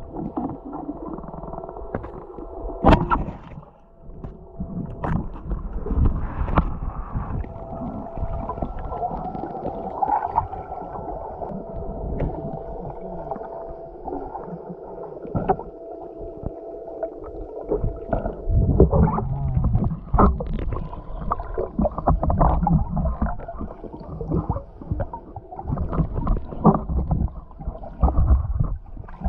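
Muffled underwater sound of water moving and gurgling, with frequent knocks and thumps against the camera housing and a faint steady whine through the first half. The rumbling grows denser about two-thirds of the way in.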